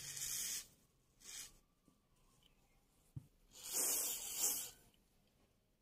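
WD-40 aerosol can spraying through its straw onto a fan motor's shaft and bushing in three short hissing bursts, the last one the longest, to loosen the bushing so the motor cover comes off. A single light click comes a little after three seconds in.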